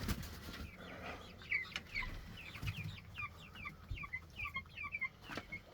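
Chickens calling with many short, high, falling notes, in a quick run through the middle, with a couple of sharp knocks.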